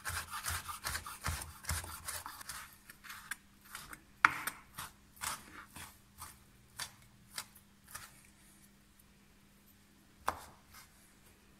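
A kitchen knife chopping bacon finely on a wooden cutting board. It starts as a fast run of knocks, slows to scattered single strikes with one sharp loud one, and thins out to the odd click after about eight seconds.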